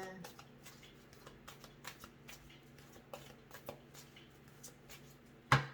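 A deck of reading cards being shuffled and handled, with soft scattered flicks and rustles, then a louder sharp knock near the end.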